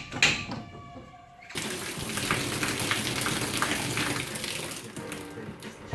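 Water from a newly installed shower set, turned on about a second and a half in and then running steadily.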